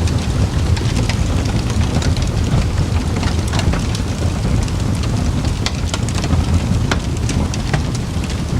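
Campfire burning with irregular crackles and pops over a steady low rumble.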